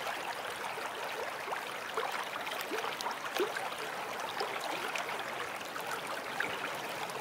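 Running water trickling and bubbling steadily, with many small bubble pops and ticks.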